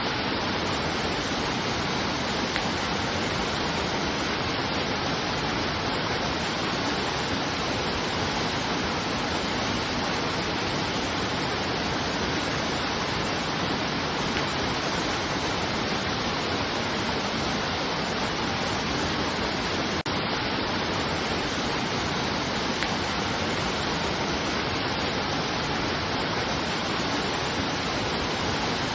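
Steady, even rush of water, unchanging throughout, with one faint tick about twenty seconds in.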